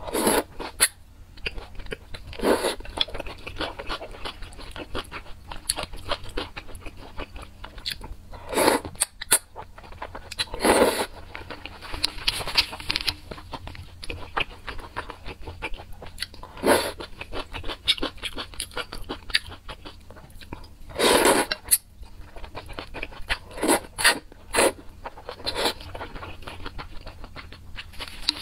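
Close-miked mouth sounds of eating thick noodles in a spicy sauce: continuous wet chewing with small crunches and clicks, broken by several louder slurps of noodles.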